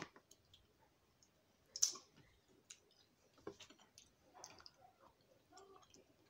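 Quiet close-up eating sounds: chewing with scattered mouth clicks and smacks, a sharp click at the very start and the loudest one about two seconds in.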